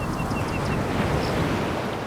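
Sea waves surging and washing over a pebble beach, swelling to a peak mid-way and easing off near the end. A quick run of about six faint, high chirps sounds in the first second.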